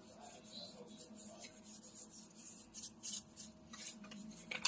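Faint rustling and crinkling as fajita seasoning is sprinkled from its packet over chunks of raw chicken and beef, with a few short sharper crinkles in the second half and the loudest just before the end.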